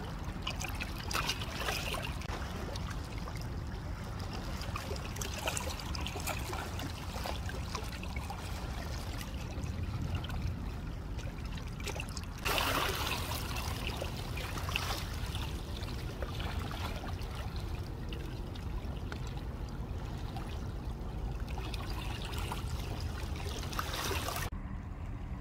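Small waves lapping and trickling against the stone riprap of a seawall, an uneven watery wash over a steady low rumble, briefly louder about halfway through.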